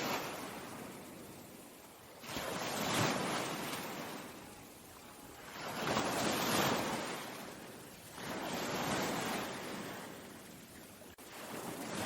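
Ocean surf: waves breaking and washing up one after another, each swelling to a hiss and fading away, about every three seconds.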